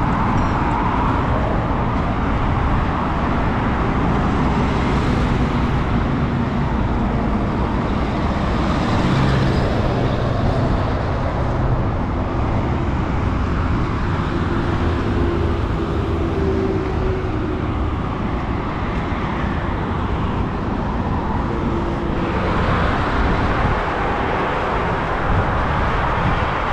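Steady road traffic noise from a busy multi-lane highway, with a low engine hum. Vehicles swell louder as they pass, a few times.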